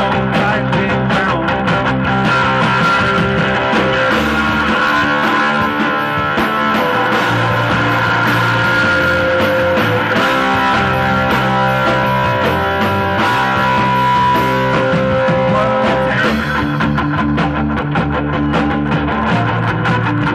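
Live rock band playing: distorted electric guitar, electric bass and a Ludwig drum kit, loud and continuous.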